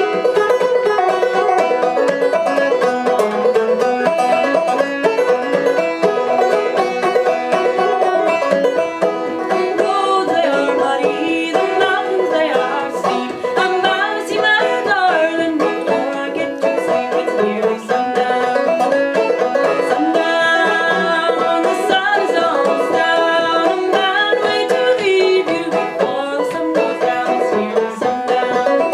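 A band playing live music with many quick plucked notes, continuous and loud.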